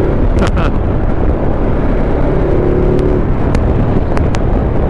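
Motorcycle running at road speed, its engine under a steady rush of wind noise, with a few faint clicks.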